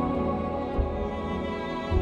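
Background music of long held notes, with a low thump about a second in and another near the end.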